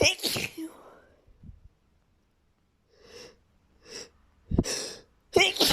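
A person in a sneezing fit: one sneeze at the start, a short pause, two quick gasping breaths in, then two more sneezes in quick succession near the end.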